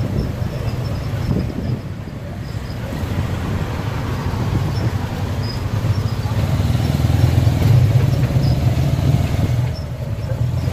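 Riding in a motorcycle-drawn tuk tuk through city traffic: the motorbike engine drones steadily under road and traffic noise, swelling louder for a few seconds past the middle.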